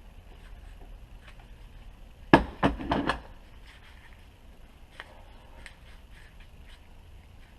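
A quick cluster of four or five sharp knocks and clatters about two seconds in, then a few faint clicks: small tools and parts being handled and set down on a workbench.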